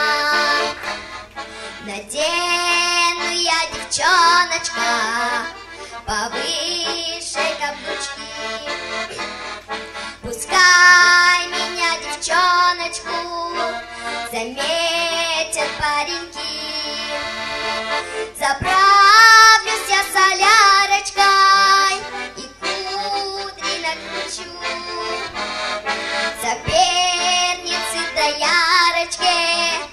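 A young girl singing into a microphone, accompanied by a piano accordion playing chords under her melody.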